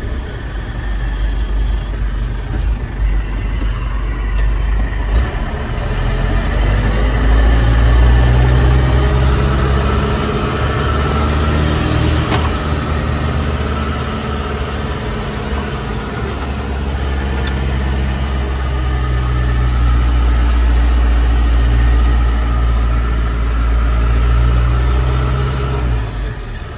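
Small truck's engine and road noise heard from inside the cab while driving, a low, steady drone. The engine note rises and falls a couple of times as the truck speeds up and eases off.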